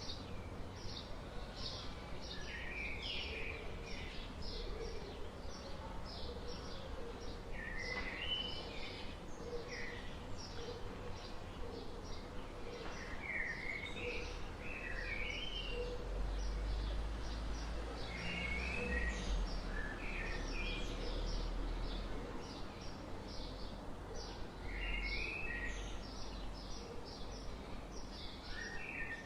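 Birds chirping and calling outdoors. A steady train of short, high chirps runs at about two a second, broken every few seconds by louder phrases that jump up and down in pitch. A low rumble sits underneath and grows stronger about halfway through.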